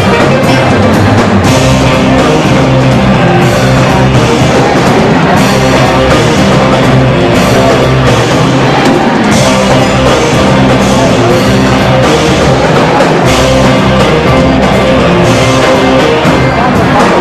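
A live band playing loud rock music, with drum kit and guitar.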